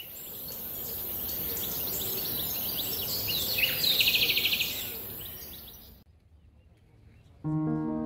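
Small birds chirping and singing over a steady high insect hiss, with a fast trill about four seconds in; the sound fades out about six seconds in. Near the end, music with held notes begins.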